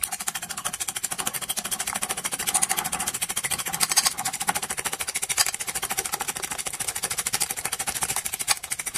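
A metal fork beating raw eggs in a ceramic plate: a rapid, even clatter of the tines striking the plate.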